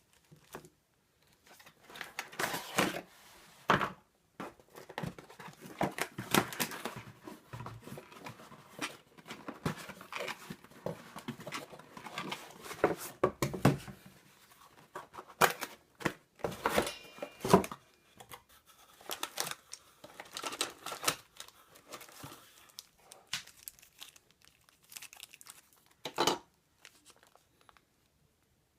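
Packaging being unpacked by hand: plastic wrap and paper crinkling and rustling in irregular bursts, with sharp clicks and knocks of parts being handled, the loudest near the end.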